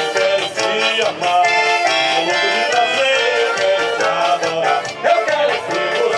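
Forró music played by a band: accordion carrying the melody over a steady, even beat, with no singing.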